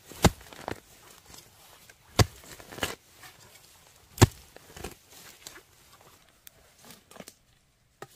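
Sharp knocks, three loud strikes about two seconds apart, each followed by lighter ones. The knocks die away near the end.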